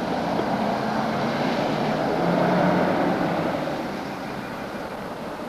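A car driving off, its engine and tyre noise swelling about halfway through, then slowly fading.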